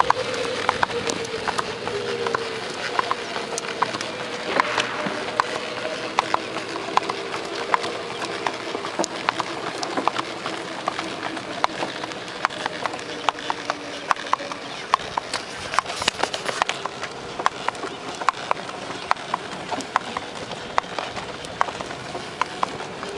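Horse walking on an asphalt road, its hooves clip-clopping in an even rhythm of two to three strikes a second, with a steady low whine underneath.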